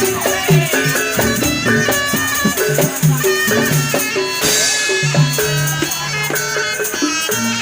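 Live East Javanese jaranan accompaniment: a gamelan-style ensemble of drums and tuned gongs playing a busy, steady beat.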